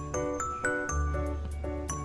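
Background music: a light melody of short pitched notes over held bass notes, at an even beat.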